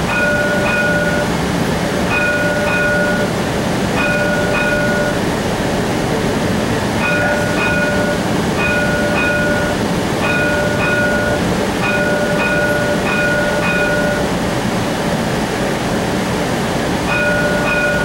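Streetcar's warning bell chiming over and over, a short ringing ding about every one and a half to two seconds, over the steady running noise of the moving car. The bell pauses twice and sounds once more near the end.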